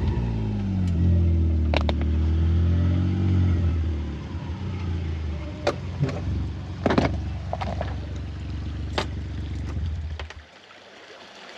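A side-by-side utility vehicle's engine running, its note dropping over the first few seconds, with a few sharp knocks over it. The engine sound stops about ten and a half seconds in.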